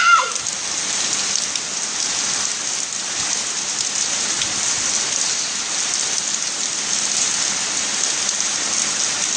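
Steady rain falling and pattering on the ground, a continuous even hiss.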